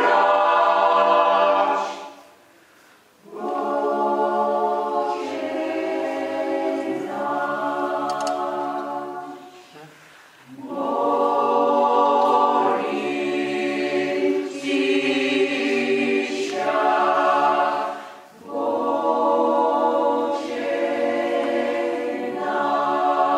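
Choir singing a slow Russian Orthodox hymn unaccompanied, in long sustained chords with low bass notes beneath. The phrases are separated by short pauses about two and ten seconds in, and a brief breath near eighteen seconds.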